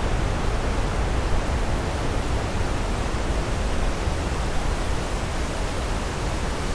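Steady rushing noise of wind buffeting the microphone mixed with running water from the river and waterfall, with a heavy low rumble and no breaks.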